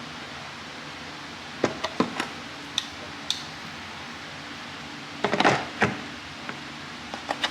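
Scattered sharp metal clicks and clacks of long-reach hose clamp pliers being handled and worked open, with a short cluster of rattling clacks about five seconds in.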